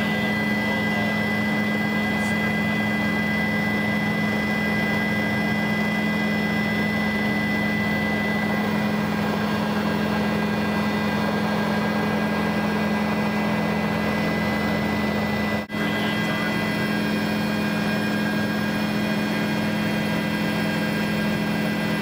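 Aircraft engine running steadily, heard from inside the cabin: an unchanging drone with a low hum and a thin high whine, broken for an instant about two-thirds of the way through.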